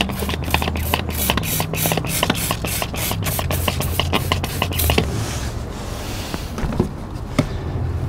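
Hand trigger spray bottle pumped rapidly, about five squirts a second for the first five seconds, then a softer hiss, misting soap and water onto an A/C condenser in a leak test.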